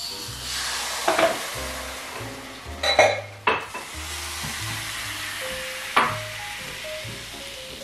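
Hopper batter sizzling as it hits a hot hopper pan and is swirled round, the hiss strongest near the start and slowly dying away. A few sharp knocks and clinks of the pan and a spoon against a bowl come through it.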